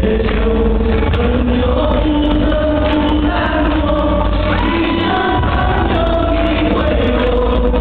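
A group of voices singing together over amplified backing music, in long held notes that move from note to note.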